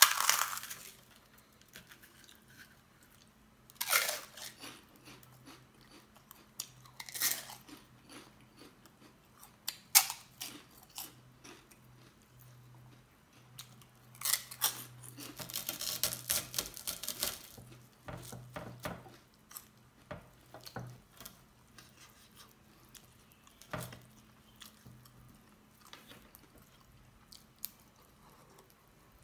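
Close-up eating sounds: a man chewing and smacking mouthfuls of dhido and chicken curry eaten by hand, with wet squishes and short sharp mouth noises coming irregularly. The busiest run of chewing comes about halfway through.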